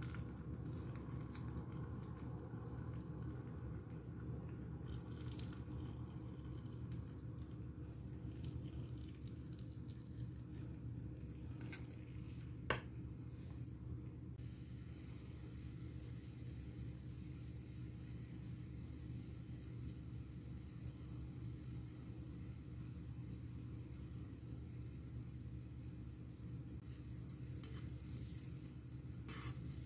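Cassava balls frying in a small pan of hot oil: a faint, steady, fine sizzle that thickens about halfway through. In the first half there are scattered light clicks as the balls go into the pan, the loudest a single sharp click near the middle, over a low steady hum.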